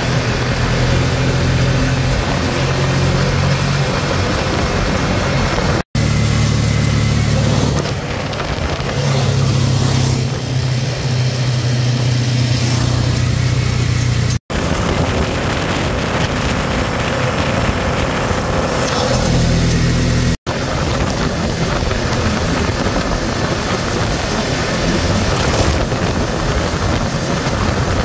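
An ATV engine running steadily at road speed, with wind rushing over the microphone and tyre noise on pavement. The sound cuts out for an instant three times where clips are joined.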